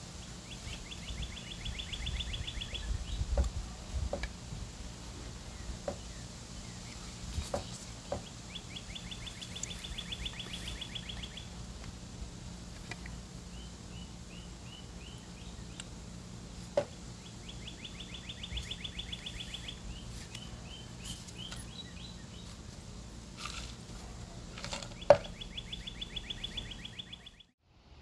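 A songbird repeating a rapid, dry, high trill of about two seconds, four times about eight seconds apart, with a few shorter chirps in between. A few sharp knocks come through, the loudest about three seconds before the end.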